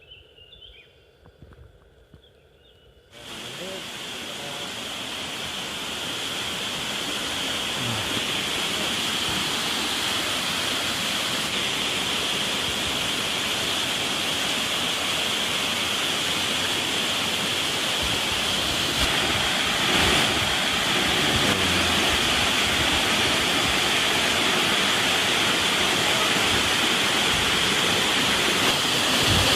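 A forest waterfall rushing steadily. It cuts in abruptly about three seconds in, after a moment of near quiet with a few faint chirps, and builds slightly over the next few seconds.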